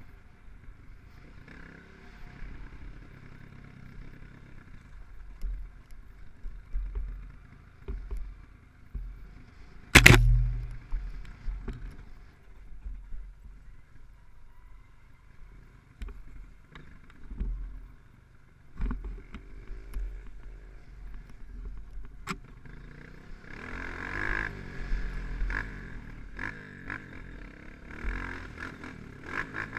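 Dirt bike engine running as it rides a rough dirt trail, with a low rumble and knocks from the bumps. One sharp, loud knock comes about ten seconds in, and the engine and rumble grow louder for the last few seconds.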